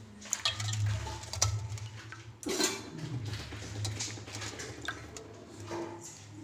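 Pieces of white pomfret being rinsed by hand in water in a metal bowl: water sloshing and splashing, with irregular clinks and knocks against the bowl. The loudest splash comes about two and a half seconds in.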